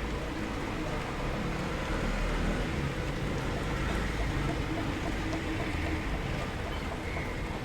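Steady rainfall heard from indoors: an even wash of rain with a low rumble and faint scattered drip ticks.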